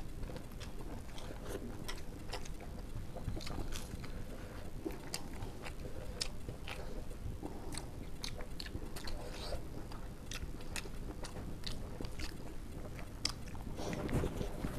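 Two people chewing and eating rice and curry by hand, with frequent short, wet mouth clicks and smacks.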